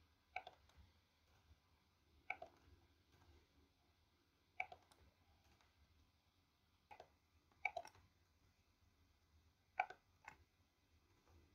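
Faint, irregular clicks of a computer keyboard and mouse as code is edited: about eight single keystrokes and clicks a second or two apart, some in quick pairs.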